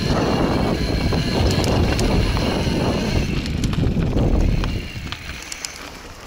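Electric mountain bike riding fast over a rough gravel trail: wind buffets the helmet-mounted microphone and the tyres rumble, with scattered rattles and clicks from stones and the bike. The rumble drops off sharply a little under five seconds in as the bike slows.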